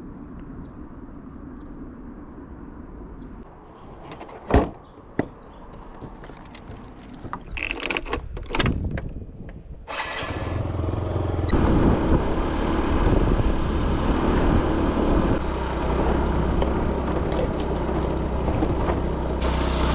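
A few sharp knocks and some clatter on a small boat. From about ten seconds in a small outboard motor runs steadily and loudly, with wind and water noise as the boat gets underway.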